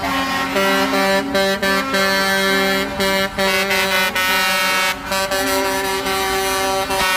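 Air horns of a line of cement mixer trucks blowing: long loud blasts at several pitches overlapping, with brief breaks between them.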